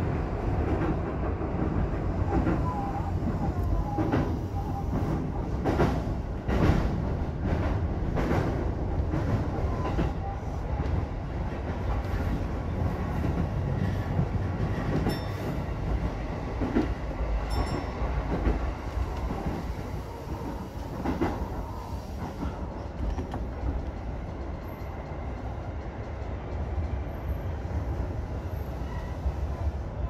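E233-1000 series electric commuter train running on the line, heard from inside the train: a steady rumble of wheels on track with clicks over rail joints, most frequent in the first ten seconds.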